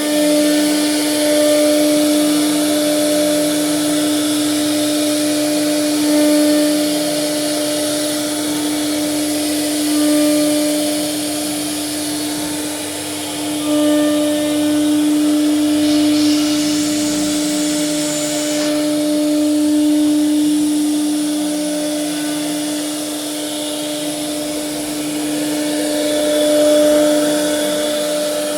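CNC wood router spindle running with a steady, high whine while it carves wood, over a softer, lower hum that rises and falls. About two-thirds of the way through there is a few seconds of added hiss.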